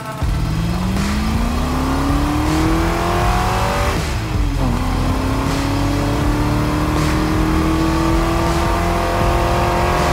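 Car engine revving hard during a burnout, with tyre smoke all around. Its pitch climbs for about four seconds, drops sharply for a moment, then climbs again and holds high.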